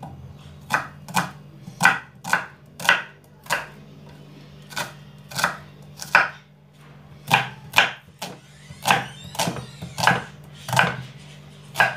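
Kitchen knife slicing red onions on a wooden chopping board. About seventeen sharp knocks of the blade striking the board, irregular, with short pauses between runs of cuts.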